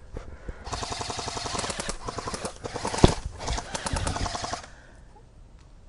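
Airsoft guns firing on full auto: rapid, evenly spaced shots in bursts for about four seconds, starting under a second in. One sharp, much louder crack comes near the middle.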